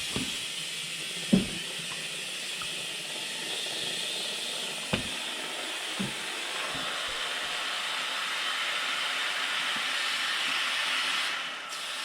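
Compressed air hissing steadily into an ATV tyre through the open valve stem, its core removed, while the tyre's bead has not yet seated. A few light knocks, and the hiss breaks off briefly near the end.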